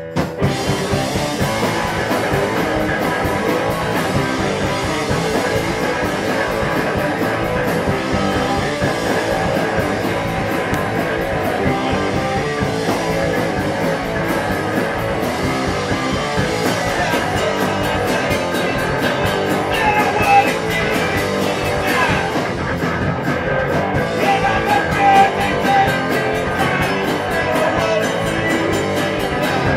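Live rock band playing loud: electric bass, electric guitar and drum kit, the whole band coming in together right at the start.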